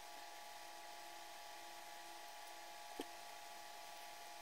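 Faint steady hum with a few thin whining tones, like an electrical device or fan running; one soft tap about three seconds in.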